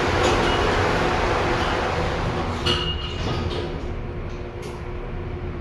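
Cruise ship passenger lift travelling between decks: a steady rushing rumble that eases off over the second half, with a brief high tone about three seconds in.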